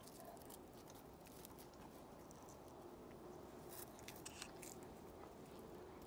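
Faint, scattered scratching of a kitten's claws gripping tree bark as it climbs down the trunk, a little louder about four seconds in.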